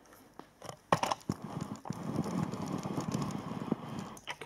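Handling noise as a diecast model airliner is set on its metal display stand: a few light knocks and clicks, then about two and a half seconds of rustling and scraping.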